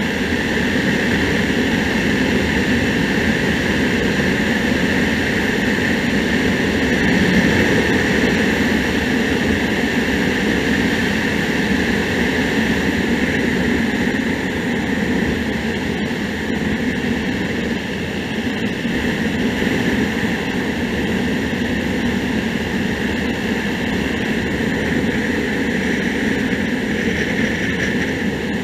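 Hyosung GD250N single-cylinder motorcycle cruising steadily, its engine drone mixed with heavy wind and road rush on the camera, held at an even speed throughout.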